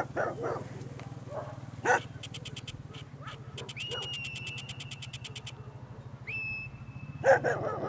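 A herd of cow-calf pairs being worked by a border collie: short calls from the cattle and dog, the loudest about two seconds in and again near the end, over a steady low hum. In the middle comes a fast run of high ticks, about ten a second, with two held high whistled tones.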